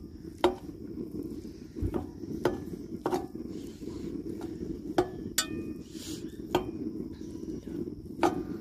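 Metal spatula tapping and scraping against a cast-iron skillet as it chops and breaks up raw ground beef: irregular sharp clinks and scrapes, roughly one every second, over a steady low rumble.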